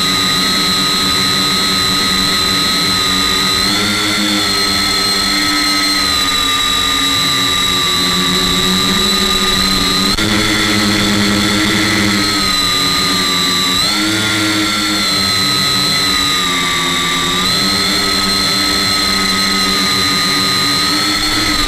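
Electric tricopter's three motors and propellers whining steadily as heard from the on-board camera. The pitch lifts and settles several times as the throttle changes in flight.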